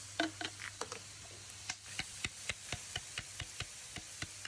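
Metal ladle clicking and scraping against a metal wok as minced garlic and shallots are stirred, sharp clicks coming several times a second over a faint hiss.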